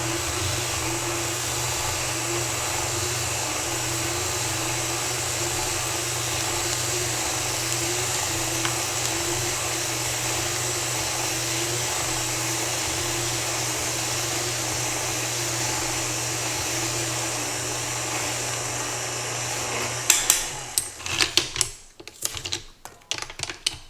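KitchenAid stand mixer running steadily, driving its peel-core-slice attachment through an apple. The motor stops about 20 seconds in, followed by a few clicks and knocks from handling the attachment.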